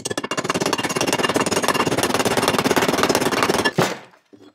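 A brass hammer tapping rapidly and continuously on a frozen Wiseco main bearing, driving it into the heated aluminium crankcase half of a 1998 Honda CR125R. The tapping lasts almost four seconds and ends with one harder strike as the bearing seats.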